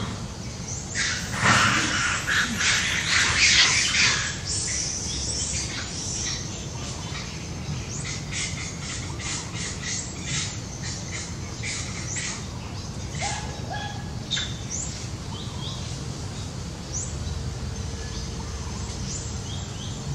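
Loud, harsh squawking calls for about three seconds near the start, then a quick run of short rising chirps, and after that scattered single chirps over a steady low outdoor rumble.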